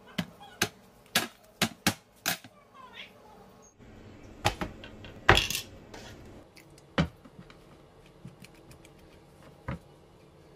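Sharp taps and knocks of bread slices, a knife and a mayonnaise jar being handled on a bamboo cutting board: six quick knocks at first, then a few scattered ones, with a louder, longer knock about five seconds in.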